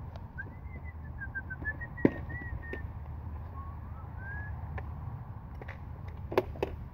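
A bird singing a quick run of short chirping whistled notes, then a few more after a pause, over a steady low rumble. A sharp click comes about two seconds in, and two more clicks come near the end.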